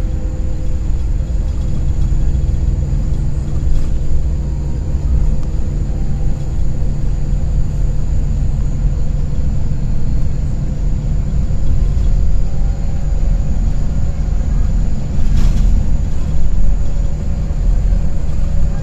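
Steady low rumble of a moving coach's engine and road noise, heard from inside the passenger cabin, with a brief knock near the end.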